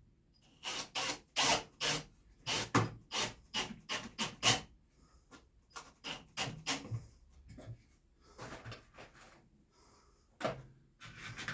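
Short scraping and rubbing strokes on wood, about a dozen in quick, irregular succession during the first half, then sparser ones, with a last pair near the end.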